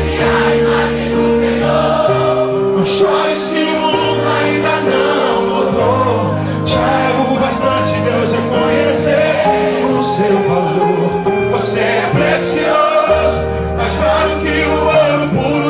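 Live gospel music: sustained keyboard chords changing every couple of seconds, with voices singing over them.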